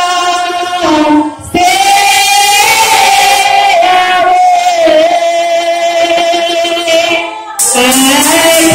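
A woman singing a worship song solo into a microphone, holding long sustained notes, with two short breaks, about a second and a half in and near the end.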